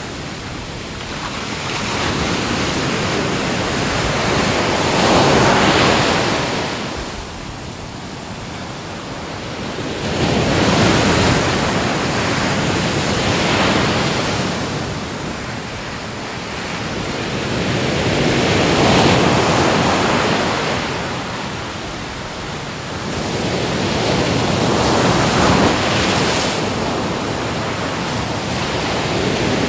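Ocean waves breaking and washing up on a shore, the surf swelling and fading in slow surges about every five or six seconds.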